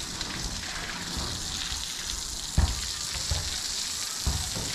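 Water from a garden hose spraying onto wet concrete, a steady hiss. A few short, dull thumps break through, the loudest a little over halfway in.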